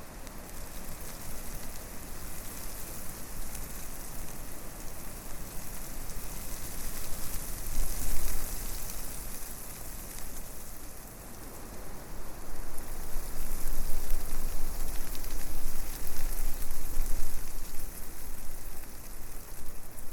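Wind gusting through forest trees, the leaves rustling in a steady high hiss over a low rumble. It swells briefly about eight seconds in and blows harder through most of the second half.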